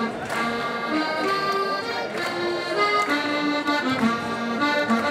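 Accordion playing a lively traditional Alpine folk dance tune, a melody of held notes over a moving bass line, as music for a Schuhplattler dance.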